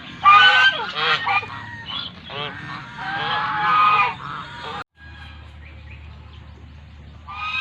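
Geese honking, a run of loud, repeated calls, then a sudden cut to quieter background with one more call near the end.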